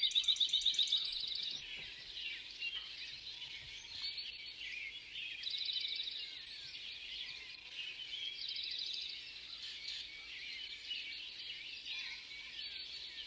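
Outdoor birdsong: many small birds chirping, with several rapid trills, the first and loudest right at the start.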